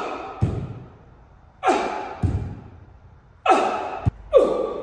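A man's sharp, forceful exhales during explosive dumbbell jumps, each followed about half a second later by the dull thud of bare feet landing on a rubber gym floor. There are three jumps, about two seconds apart, and a final exhale near the end.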